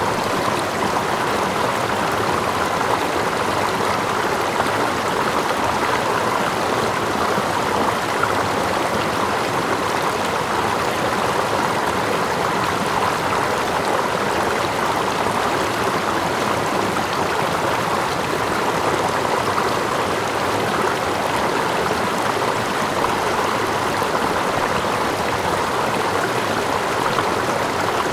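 Running stream: a steady, even rush of flowing water with gentle lapping close by.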